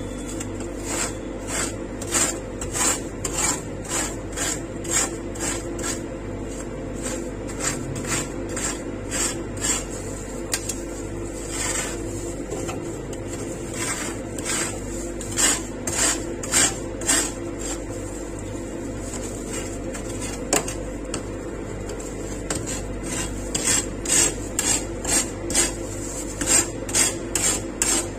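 Metal spatulas chopping and scraping on a steel ice-roll cold plate, working an ice cream base with wheat crisps. The clacks and scrapes come in a quick rhythm of about two strokes a second, louder near the end, over a steady hum.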